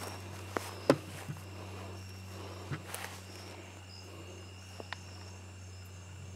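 Night insects, crickets, chirring steadily over a low hum, with a few footsteps and sharp knocks in the grass, the loudest about a second in.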